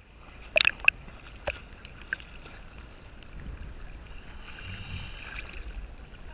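Seawater sloshing and lapping against a waterproof action camera held at the surface, with a few sharp splashes about half a second in, then a steady low wash of water.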